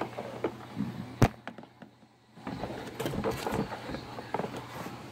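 Hard plastic Party Wagon toy van being handled: a sharp click about a second in, then a brief lull and scattered light knocks and rustling.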